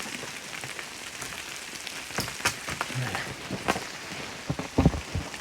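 Sleet pattering steadily, with a few sharp knocks and taps scattered through.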